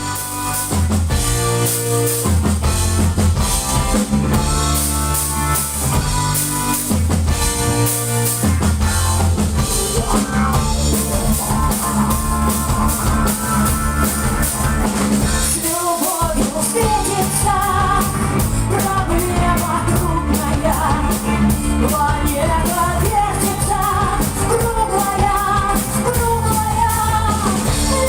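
Rock band playing live with drum kit, bass and guitar; after an instrumental opening there is a brief break about halfway through, then a singer comes in over the band.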